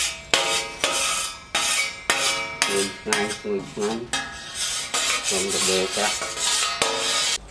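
A brush rubbed back and forth over a large aluminium tray to spread oil on it, a scraping, rushing stroke repeated about twice a second.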